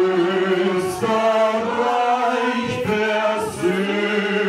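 A group of voices singing a German song together in slow, long-held notes, with a short breath break about three seconds in.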